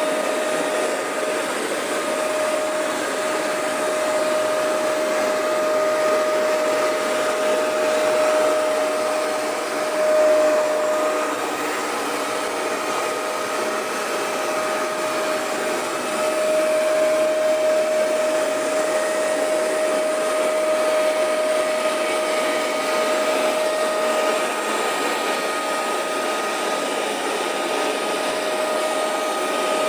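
Hoover MaxExtract 77 carpet cleaner running steadily, its suction motor giving a steady whine over a rushing airflow.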